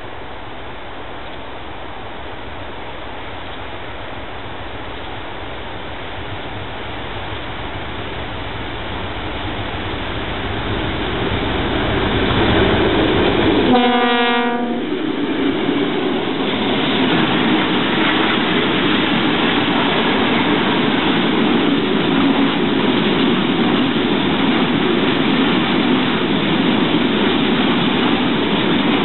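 ST44 (M62-type) diesel locomotive approaching with its diesel engine rumble growing steadily louder. It sounds a short horn blast of about a second as it passes, about halfway through. After that a long train of container wagons rolls past with steady wheel-on-rail noise.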